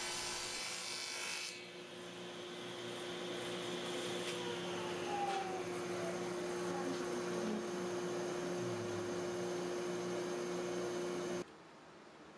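Table saw running and bevel-cutting 1/4 inch MDF: a steady hum under the hiss of the blade, cutting off suddenly near the end.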